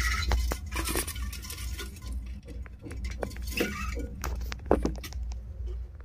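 Irregular clicks, taps and scrapes of a phone being handled against a budgerigar nest box, over a steady low rumble.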